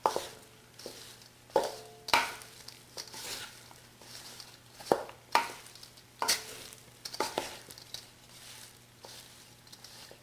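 A utensil stirring cooked quinoa, chicken and broccoli in a pot, with irregular scraping and about a dozen sharp knocks against the pot, some of which ring briefly.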